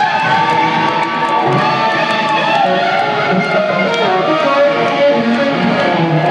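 Live rock band playing an instrumental passage, with an electric guitar to the fore playing notes that bend in pitch over bass and drums.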